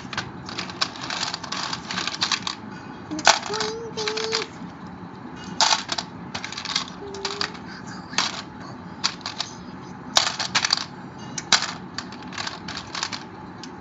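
Plastic Connect 4 discs dropped one after another into the upright grid, each clattering down its column in a quick run of clicks.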